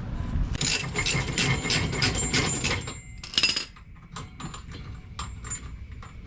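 Ratchet wrench clicking quickly as it turns a shock absorber mounting bolt, with a louder metallic clink about three and a half seconds in and slower, scattered clicks after it.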